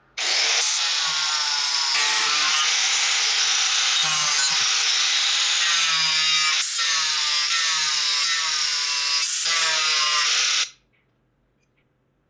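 Angle grinder fitted with a saw-chain carving disc cutting into a wooden block, the motor's whine wavering in pitch as the load on it changes, with a few sharp knocks. It starts just after the beginning and cuts off suddenly about eleven seconds in.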